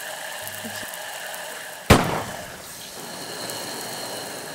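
A single sharp, loud impact hit about two seconds in, its tail falling away, over a steady hissing drone.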